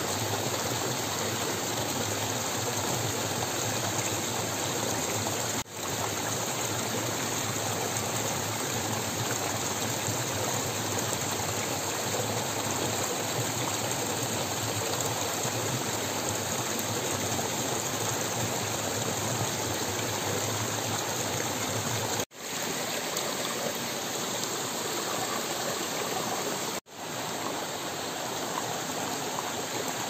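Small rocky hill stream splashing and trickling down between granite boulders in a steady rush of water. The sound cuts out for an instant a few times.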